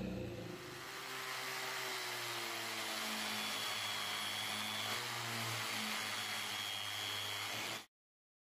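A drill spinning a small abrasive wheel inside the eye of a steel axe head, grinding off rust with a steady high whine. It stops abruptly near the end.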